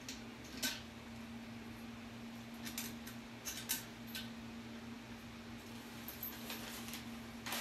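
Scattered small clicks and light metallic rattles of washers and a nut being handled and fitted onto a toilet bowl's fixing bolt by hand, over a steady low hum.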